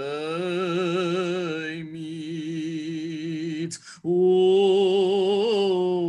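A male cantor singing a Hebrew liturgical melody solo, drawing out long held notes with a wide vibrato. He breaks briefly for a breath about four seconds in, then holds a louder note.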